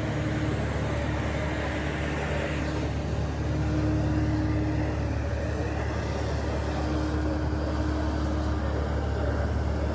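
Steady low engine drone on an airport apron, from a jet airliner and a small airport tug driving past close by, under a constant rushing noise.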